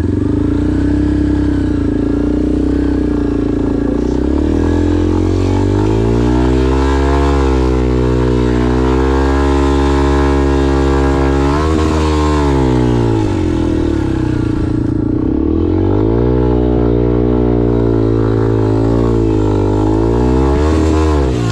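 Adventure motorcycle engine revving under load while climbing a steep hill, its pitch rising and falling with the throttle and dipping briefly about twelve seconds in.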